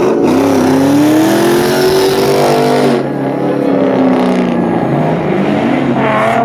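Car engine revving hard at high revs, its pitch climbing for a couple of seconds, then dropping and climbing again, with tire noise in the first half.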